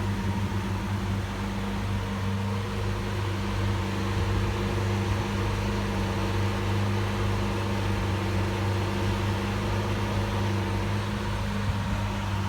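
Lamborghini Aventador S's naturally aspirated V12 idling, a steady low hum that holds an even pitch with no revs or pops.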